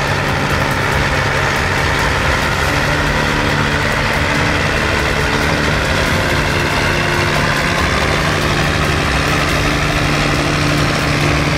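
John Deere 8100 tractor's six-cylinder diesel engine running steadily under load as it pushes grass silage up the clamp.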